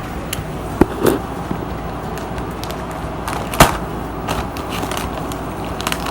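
Several sharp knocks and clicks over a steady low rumble. The loudest knock is a little past halfway; two others come about a second in.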